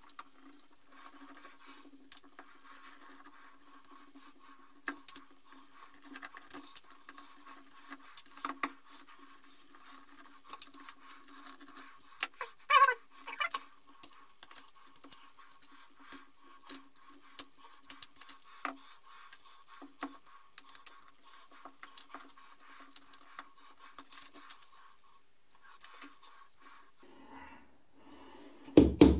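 Small clicks, taps and scrapes of a screwdriver backing out screws and of an airsoft electric gun's gearbox and parts being handled, with one brief louder squeak about halfway through.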